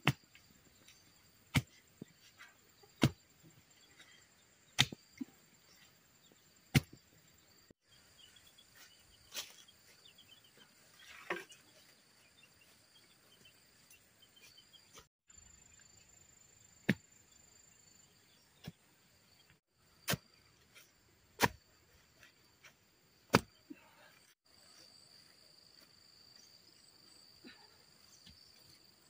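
Sharp wooden knocks, one every second or two, from work on bamboo fence stakes, over a faint, steady, high-pitched insect drone.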